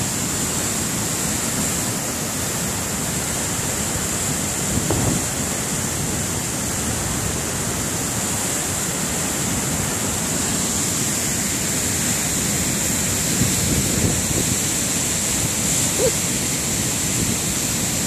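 Large waterfall: white water plunging down a rocky gorge, a steady, loud, unbroken rush of water.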